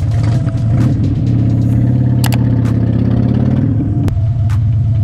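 Harley-Davidson Dyna motorcycle's V-twin engine running steadily, with a couple of sharp clicks.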